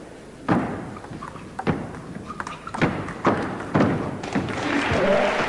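Table tennis ball being struck by bats and bouncing on the table during a rally: a series of sharp knocks at uneven intervals. Near the end the rally stops and a crowd starts applauding, growing louder.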